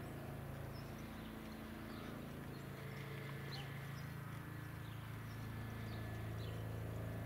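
Distant Eurocopter AS365 Dauphin twin-turbine helicopter in flight, a steady low rotor drone with a fast, even blade throb that grows a little louder near the end.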